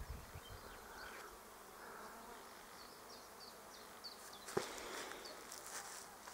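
Faint, steady buzzing of a honeybee swarm, newly issued from the hive and clustering on a tree. A single sharp click comes about four and a half seconds in.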